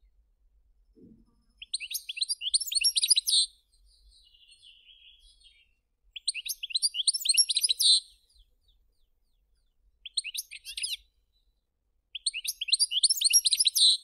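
European goldfinch singing: four bursts of rapid, high notes, each about one to two seconds long, with a softer short twitter between the first two.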